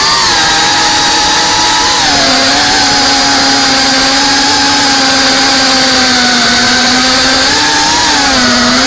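FPV quadcopter's brushless motors and propellers whining with a hiss of air. The pitch drops about two seconds in, holds steady, then swells near the end with the throttle.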